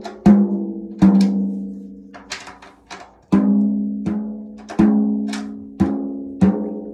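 Drums struck one hit at a time, roughly once or twice a second at an uneven pace. Each hit rings out for most of a second at a clear low pitch, and the pitch moves between two notes, as from two different drums.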